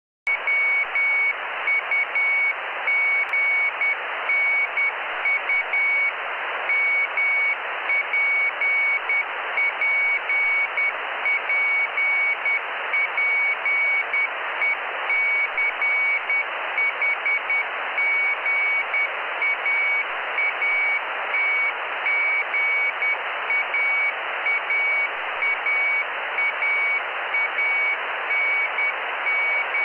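Morse code (CW) telemetry beacon from the Jugnu CubeSat heard through a radio receiver. A single steady high tone keys on and off in dots and dashes, spelling the satellite's name and telemetry, over loud, steady receiver hiss. It starts a moment in, out of silence.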